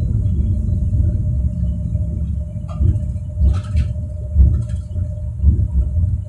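Bombardier NGT6/3 tram running along the track: a steady low rumble of wheels on rail with a constant hum from the drive. A few brief high clicks or squeaks come about halfway through.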